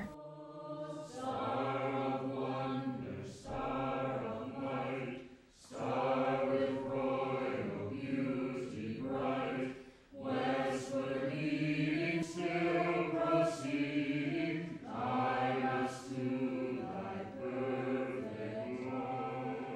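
A small group of Carmelite monks and nuns chanting a sung prayer together, in long held phrases with short pauses for breath between them.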